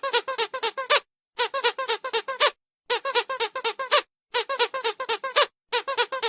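Squeaky dog toy squeezed in quick bursts of about eight squeaks each, roughly one burst a second with short pauses between, repeating in an even pattern.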